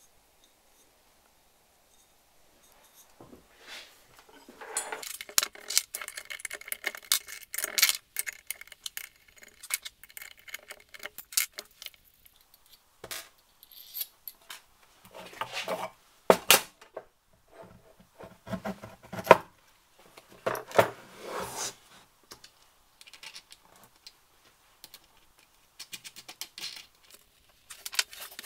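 Irregular metallic clicks, clinks and rattles of small metal parts being handled, starting a few seconds in: a diamond grinding wheel, its flange and locking nut being fitted onto a Bosch angle grinder's spindle.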